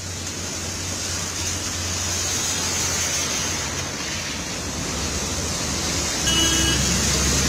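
Rain and traffic on a flooded road: a steady hiss of rain and tyres spraying through standing water, over the low rumble of bus and car engines. A brief faint tone sounds about six seconds in.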